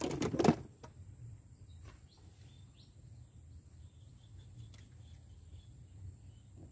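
A brief loud burst of knocking and handling noise at the very start, then faint short bird chirps over a low, steady outdoor rumble, with a single click about five seconds in.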